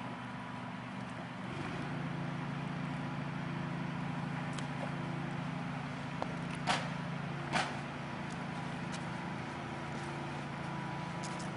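Steady low motor hum that grows a little louder about a second and a half in, with two brief sharp sounds around the middle.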